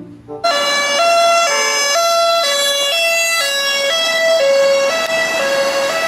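Police car siren sounding a two-tone hi-lo pattern, switching between two pitches about every half second. It starts suddenly about half a second in.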